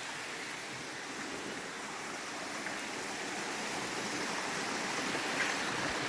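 Small waterfall: water rushing and splashing steadily, growing slightly louder toward the end.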